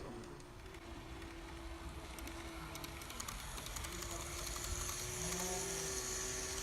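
KATO model train running on its track: a faint steady motor whine with light scattered clicks of the wheels over the rails, a higher whine joining about four seconds in.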